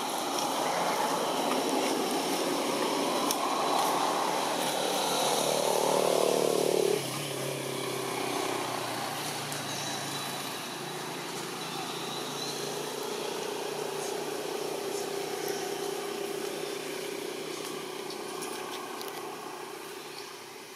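Motor vehicle noise: a broad engine-and-road rumble that grows louder, then drops off sharply about seven seconds in. A fainter, steady engine hum follows and fades near the end.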